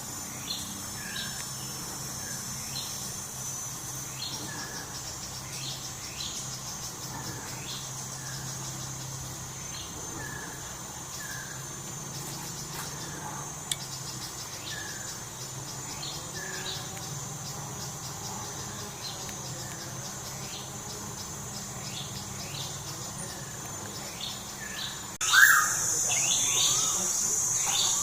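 Birds calling with short notes repeated every second or two over a steady high-pitched insect drone. Near the end the sound jumps louder, with a loud bird call and a stronger insect drone.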